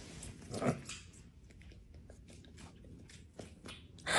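Faint wet clicks of a kitten licking and nibbling at a person's chin close to the phone, with a short soft sound about half a second in.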